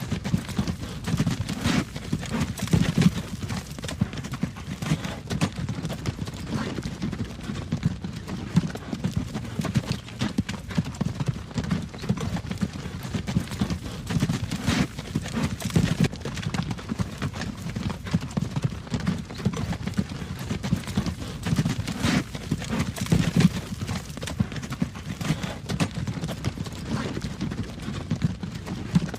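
Horse hooves clip-clopping on the road while the horse pulls a wagon, with the wagon's low rumble rolling steadily underneath.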